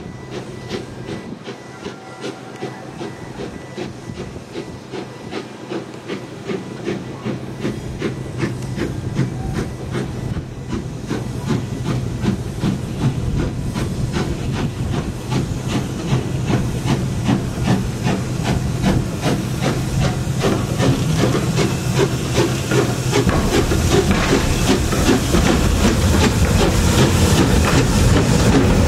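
Steam locomotive working, its exhaust beating in a steady rhythm over a hiss of steam, growing steadily louder.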